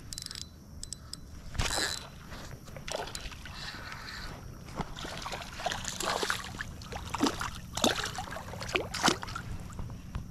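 Hooked smallmouth bass thrashing at the surface of shallow river water as it is reeled in: a run of sharp, irregular splashes that come thicker and louder in the second half.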